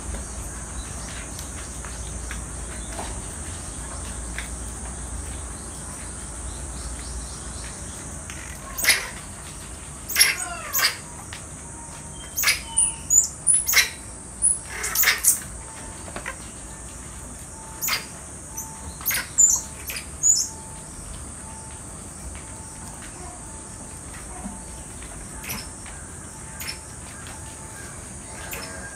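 Common squirrel monkeys giving about a dozen short, sharp, high-pitched chirps in a cluster through the middle, over a steady high insect drone.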